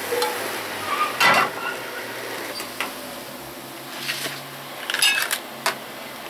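Metal clatter as fried onions and oil are tipped from a frying pan into a small metal mesh strainer: a loud knock and scrape about a second in, then a cluster of clinks and taps in the last two seconds.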